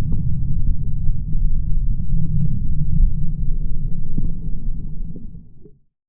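A steady low rumble with a few faint clicks, fading out near the end.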